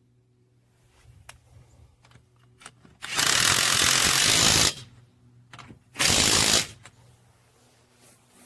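Cordless impact wrench triggered twice with nothing on the anvil: a burst of about a second and a half about three seconds in, then a shorter one about six seconds in, with small handling clicks between.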